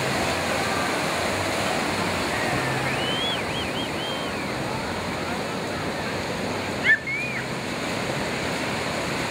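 Ocean surf washing and breaking in a steady rush of whitewater. A few faint high calls come about three to four seconds in, and a brief loud sound stands out about seven seconds in.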